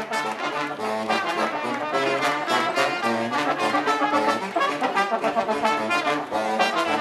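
Balkan brass band playing live: brass horns carry a fast tune over a steady, driving beat.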